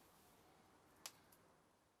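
Near silence: a faint steady hiss with one short, sharp click about a second in, fading out near the end.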